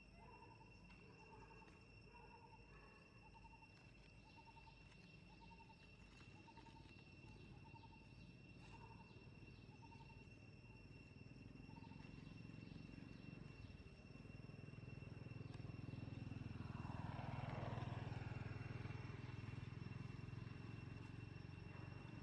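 Faint outdoor insect sounds: a steady high-pitched drone with a short chirp repeated about once a second for the first half. A low rumble swells from a little past halfway, loudest near three quarters through, then eases off.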